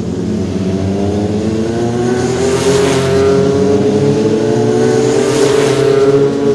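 A race-car engine sound effect from an electronic keyboard, revving with a slowly rising pitch. Two hissing swells come through, about two and a half seconds in and again near the end, like cars rushing past.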